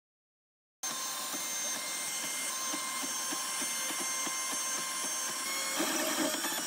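Snapmaker 3D printer running a print: its stepper motors whine steadily, with regular low pulses as the toolhead and bed move. It starts after about a second of silence and gets a little louder near the end.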